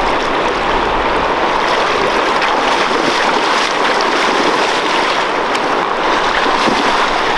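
Steady rushing of fast-flowing river water, an even hiss-like wash with no pitched tone.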